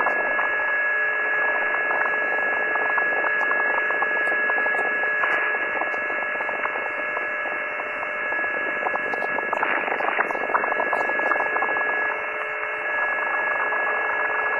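Unidentified signal received on the 10 metre amateur band, heard through a Yaesu FT-950 transceiver's audio: several steady tones of different pitch held over a hiss of band noise.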